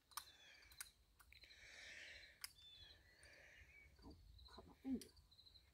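Near silence: faint outdoor ambience with insects chirping in short pulsed trills, a few faint clicks, and a brief voice-like murmur near the end.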